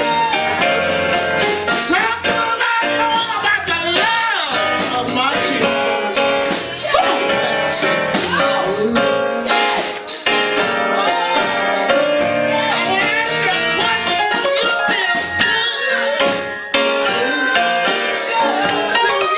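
Gospel song: an elderly woman singing into a microphone over lively instrumental backing with a steady beat.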